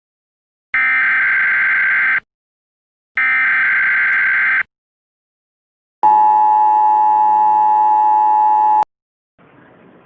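Two bursts of EAS SAME header data, a rapid warbling two-pitch data tone, each about a second and a half with a short pause between. Then the steady two-tone EAS attention signal sounds for about three seconds and cuts off abruptly. A faint hiss comes in near the end.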